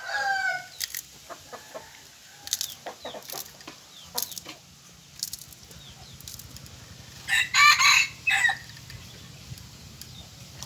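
Chickens calling, with short chirps at the start, scattered clicks, and one loud, drawn-out crow-like call about seven seconds in.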